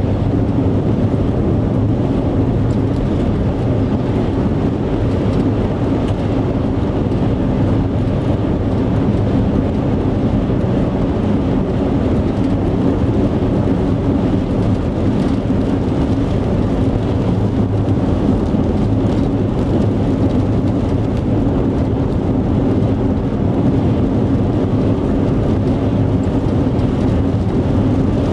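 Steady engine and road noise inside a moving car's cabin, a constant low drone.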